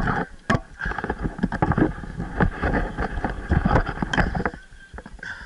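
Irregular clicks, knocks and scraping close to the microphone, over a low rumble.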